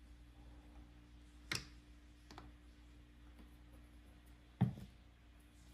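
Faint handling of a plastic squeeze bottle of cream cleanser on a countertop: a sharp click about a second and a half in, a lighter tick soon after, and a heavier knock about four and a half seconds in. A low steady hum runs underneath.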